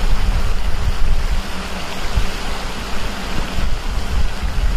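Wind buffeting the microphone: a steady rushing noise with an uneven low rumble.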